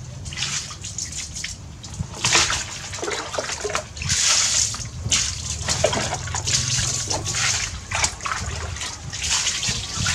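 Water sloshing and splashing in a plastic basin as a plastic scoop dips in and pours, in irregular bursts of varying length over a low steady hum.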